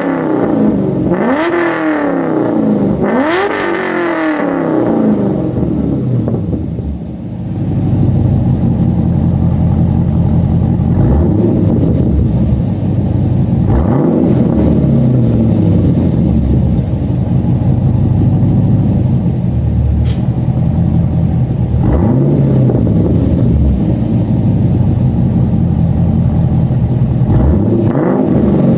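2010 Chevrolet Camaro SS 6.2-litre V8 through SLP long-tube headers and a full 3-inch SLP Loud Mouth exhaust, revved three times in quick succession, then settling to a steady idle broken by a few light throttle blips.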